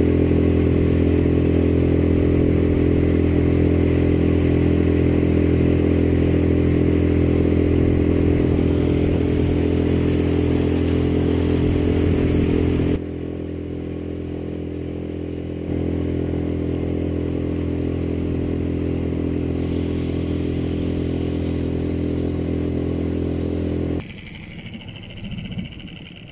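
Outboard motor on an inflatable boat running steadily at cruising speed. It drops in level for a few seconds about halfway through, then cuts out a couple of seconds before the end.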